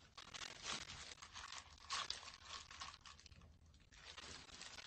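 Thin disposable plastic gloves crinkling and rustling as hands work a soft dough in a bowl, in faint, irregular rustles.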